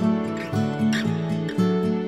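Background music: a plucked-string tune, with a new note struck every fraction of a second.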